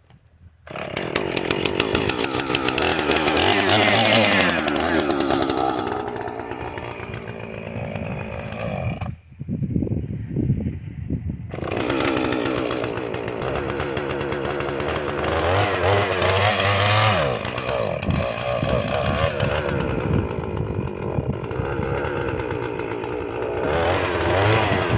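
Husqvarna chainsaw running at high revs, its pitch rising and falling as it works. Around ten seconds in it drops back to a low idle for about two seconds, then revs up again.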